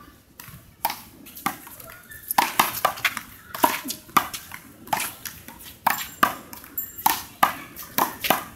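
Small rubber handball in a rally: a run of sharp smacks as it is bounced, struck by hand and rebounds off the wall and the court, several hits coming close together at times.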